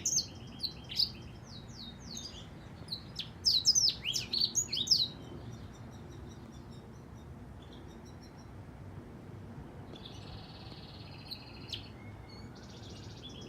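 Black-throated canary singing: rapid runs of sweeping, chirping notes in the first few seconds, then a pause and two short buzzy trills near the end.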